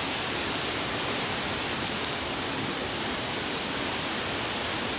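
Steady, unbroken rushing of flowing water, as from a stream or the dam's outflow.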